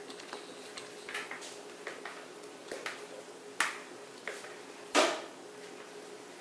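Spatula scraping cake batter out of a bowl into a paper-lined baking pan: soft scraping and small clicks, then two sharp knocks of the utensil a little over a second apart in the second half, the second one the louder.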